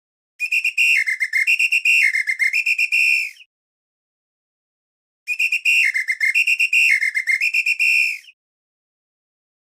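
A whistle blown hard in two blasts of about three seconds each, with a pause between them. The pitch steps back and forth between a higher and a lower note, and a fast trill runs through it.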